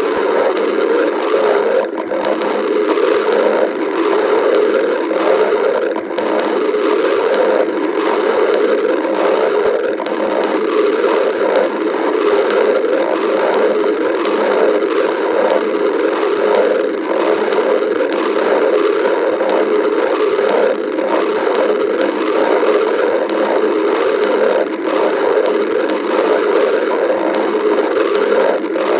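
A person's stomach growling: a continuous gurgling rumble with no pauses.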